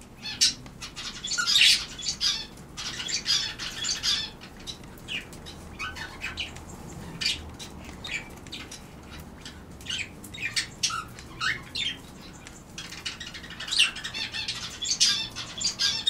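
Cockatiels squawking and chirping in quick bouts of short, high calls, busiest near the start and again near the end with sparser calls in between.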